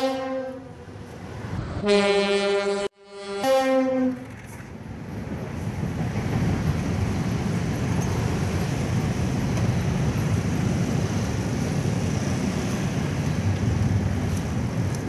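Indonesian locomotive horn sounding the Semboyan 35 signal: a blast trailing off at the start, then two more blasts about 2 and 3.5 seconds in. After that comes a steady rumbling rush of the train running past.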